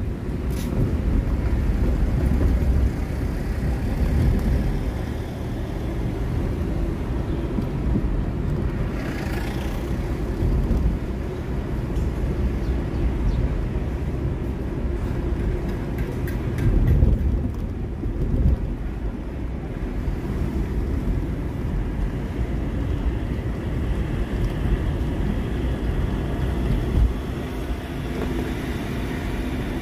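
A car driving on city streets, heard from inside through a dashcam: a steady low rumble of engine and tyre noise, with a brief louder swell of passing traffic about seventeen seconds in.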